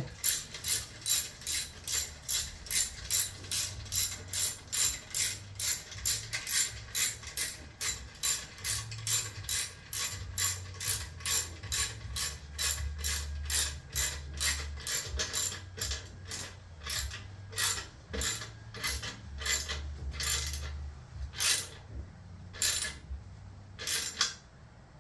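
Hand ratchet clicking in a long steady run, about two to three clicks a second, slowing and spacing out toward the end as it tightens the clamps that hold a motorcycle exhaust heat shield.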